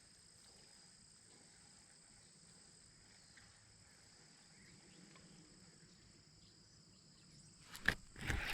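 Faint outdoor pond-side quiet with a steady high insect drone. A couple of sharp clicks come near the end.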